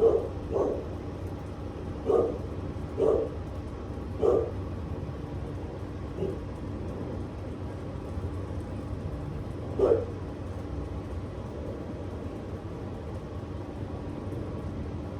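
A dog barking: single short barks every second or so through the first few seconds, a faint one about six seconds in, and one more near ten seconds in, over a steady low background rumble.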